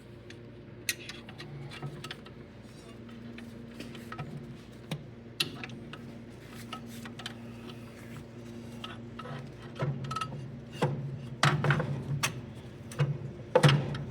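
Metal clinks and knocks from a heavy clutch pressure plate being worked onto the flywheel of a 1929 McCormick Deering 22-36 tractor. They grow into louder clunks and thumps over the last few seconds, over a steady low hum.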